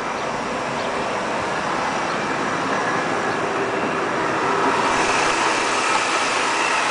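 Supercharged BMW S54 straight-six in an E46 M3 idling steadily, heard from outside the car, with the supercharger barely noticeable. It grows a little louder about five seconds in as the hood comes up.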